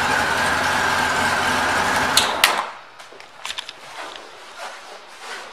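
1998 Honda Goldwing SE's flat-six engine idling steadily, then cutting off abruptly about two and a half seconds in, just after two sharp clicks; after it stops, only faint clicks and handling sounds remain.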